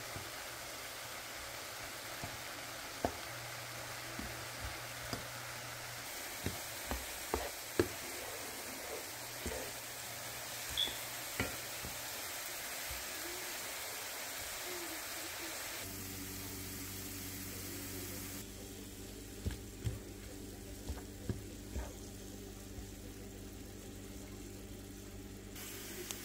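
Diced vegetables and onion sizzling in a pan while a spoon stirs them, with scattered light knocks of the spoon against the pan. About two-thirds of the way in, a steady low hum comes in beneath the stirring.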